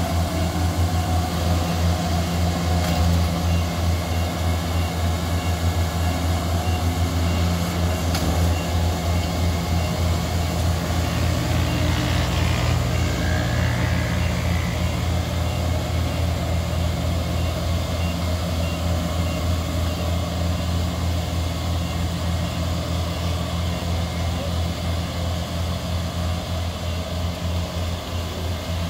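Diesel engine of a Kubota DC-70 rice combine harvester running steadily, a loud low pulsing drone that eases off a little near the end.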